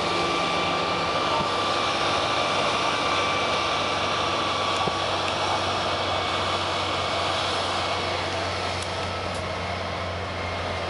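Steady running noise inside a moving bus: a low engine drone with road and wind noise, and a faint whine in the first few seconds. The low drone gets stronger near the end.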